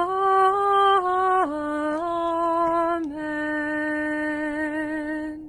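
A woman singing alone, unaccompanied, on long drawn-out notes. The pitch steps up and back down, and she ends on one long steady note of about two and a half seconds.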